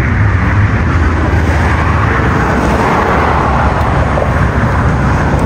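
Toyota GR Supra's engine and exhaust running with a steady low rumble as the car creeps out of a driveway at low speed.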